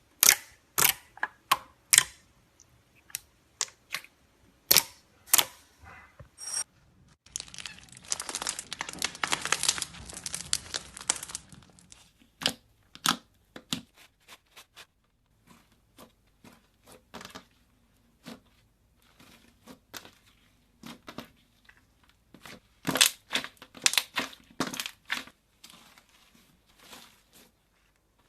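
Slime being squished and worked, making sharp clicking pops, with a stretch of dense crackling about seven seconds in that lasts some five seconds.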